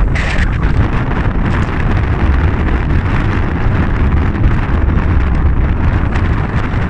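Storm wind buffeting the microphone: a loud, steady, low rumble.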